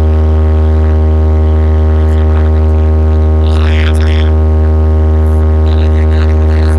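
A towering DJ speaker stack holding a sustained, very loud bass test tone: one unchanging deep drone with buzzing overtones, played to show off the system's hard vibration. Short high cries cut through it about halfway in.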